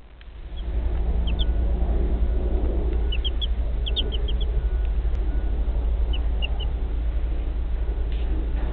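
Two-day-old chicks peeping: short high cheeps in small clusters about a second in, a busier run around three to four and a half seconds in, and a few more at about six seconds. Under them is a steady low rumble.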